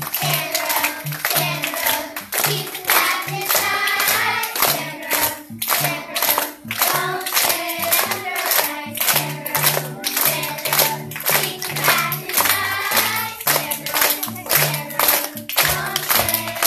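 A song with singing over a steady beat and bass line, with hands clapping along in time.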